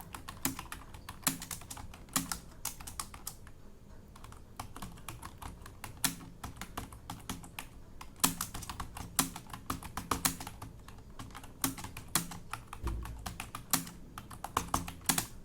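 Fast typing on a computer keyboard: a dense, irregular run of key clicks with a short pause about three and a half seconds in.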